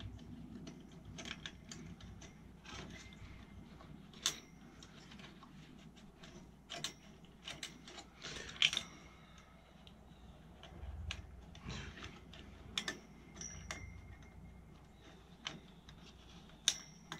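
Scattered clicks and small rattles of metal and plastic parts being handled inside a desktop computer case around the CPU cooler, with a few sharper clicks, the loudest about eight and a half seconds in. A faint low rumble runs underneath and swells briefly around the middle.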